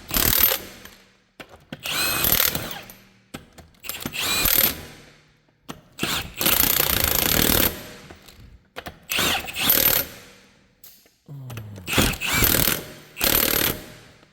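Impact wrench running lug nuts onto a wheel in about seven short bursts, one longer burst near the middle.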